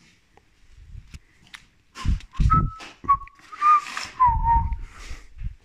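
A man whistling a few short notes, with metal clinks of wrenches being handled as one is drawn from a cloth tool roll, and dull thumps of handling.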